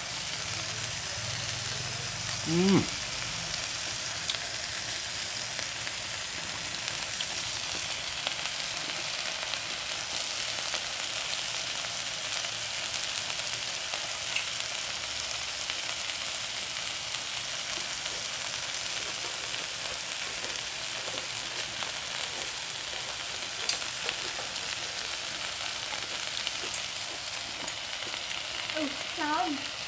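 Beef slices and green beans sizzling steadily on a hot tabletop grill pan. A brief voice cuts in about three seconds in.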